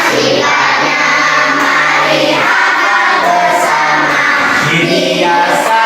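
A class of schoolchildren singing together in unison, a simple song in Indonesian about the properties of light.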